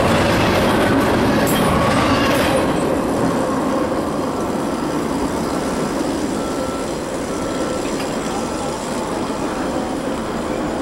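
The last cars of a double-stack intermodal freight train roll past, the wheels clattering with a steady squeal, then the sound fades after about three seconds as the train moves away. From about four seconds in, a short high tone repeats evenly, about three every two seconds.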